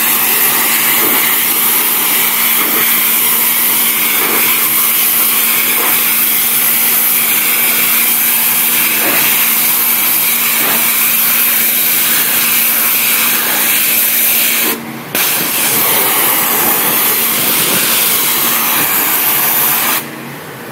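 3000 psi hot-water pressure washer spraying against an aggregate stone wall: a loud, steady hiss of the jet with a steady hum beneath. The spray breaks off briefly about 15 seconds in and stops near the end.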